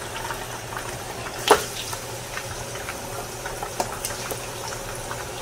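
Raw meat frying in hot palm oil in a pot: a steady sizzle, with a few sharp pops, the loudest about one and a half seconds in.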